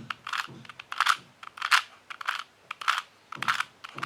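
Plastic 2x2 Rubik's cube clicking and clacking as its top layer is turned anticlockwise (U prime) again and again, a turn roughly every half second or so.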